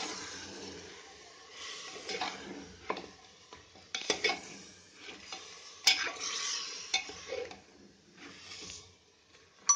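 Metal spatula stirring and scraping mutton and masala in an aluminium pressure cooker while it sizzles in the oil, the bhuna stage of frying meat with spices. Irregular strokes every second or two, with a couple of sharp clinks of the spatula against the pot about four and six seconds in.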